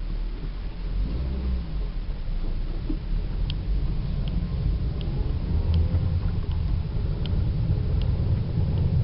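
Toyota Celica with a manual gearbox driving, heard inside the cabin: a steady low engine and drivetrain rumble with the pitch rising as it pulls, plus a light tick about every three quarters of a second from about three and a half seconds in. The owner hears a chattering noise that gets louder in higher gears and suspects a failing throw-out bearing.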